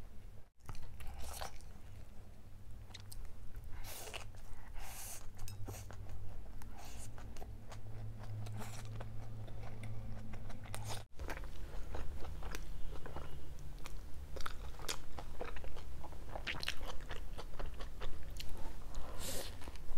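Close-miked biting and chewing of a Domino's double cheese pizza: irregular wet mouth sounds and bites through the crust. The sound drops out briefly twice, about half a second and eleven seconds in.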